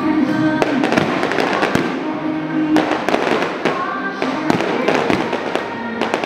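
Fireworks bursting overhead in quick succession, a run of sharp bangs and crackling, with music playing underneath.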